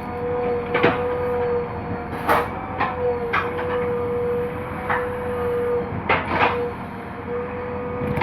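JCB 3DX backhoe loader running under load, with a steady high whine over the engine and irregular metallic clanks and knocks from the working digging gear.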